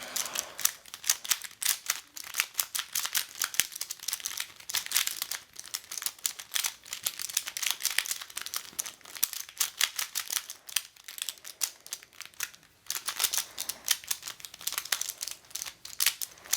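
Triangular plastic twisty puzzle (a "triangle cube") being scrambled by hand: fast, irregular clicking and clacking of its pieces as they are twisted.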